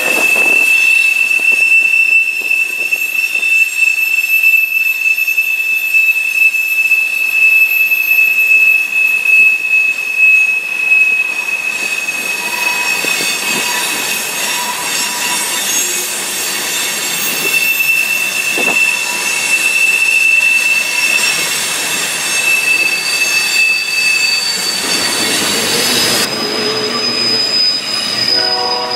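Freight train wheels squealing against the rails: a loud, steady, high-pitched ringing tone, with other shrill tones coming and going. This is the flange squeal of wheels grinding through a curve.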